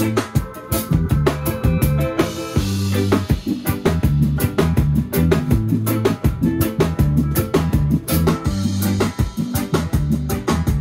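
Background music: a drum kit keeps a steady beat over a stepping bass line, with a cymbal wash about two seconds in.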